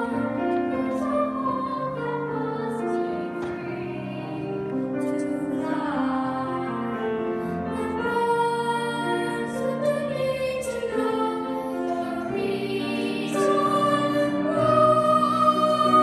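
A small group of young girls singing a slow song together in harmony, holding long notes, growing louder near the end.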